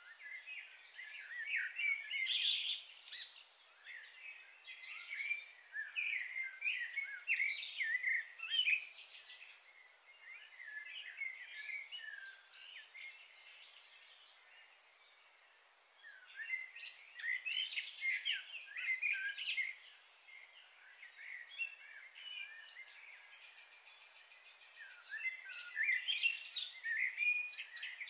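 Small birds chirping and chattering, many short calls overlapping in bouts of a few seconds, with quieter spells between.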